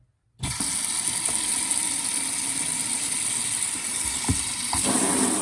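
Tap water running into a mop bucket: it starts suddenly about half a second in and runs as a steady hiss, sounding fuller and lower for a moment near the end.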